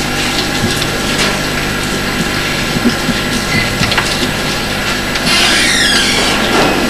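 Rustling and scuffing of a bundle of leafy herbs being swept over a person, with scattered small clicks and a louder swish about five seconds in, over the steady hiss and hum of an old video recording.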